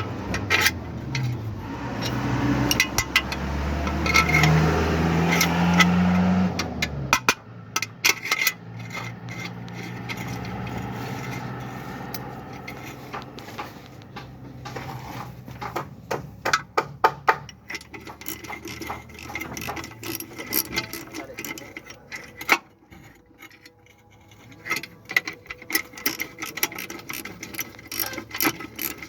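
Metal tools clinking and clicking against steel bolts and brake parts while a tractor's brake assembly is bolted back together, with many short irregular clinks. A low steady drone fills the first seven seconds, then stops.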